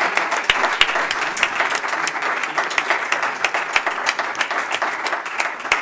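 Audience applauding: many hands clapping together in a dense patter, easing off slightly near the end.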